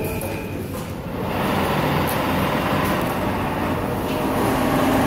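Richpeace automatic CNC pattern sewing machine running, a steady mechanical stitching noise that thickens and grows slightly louder about a second in.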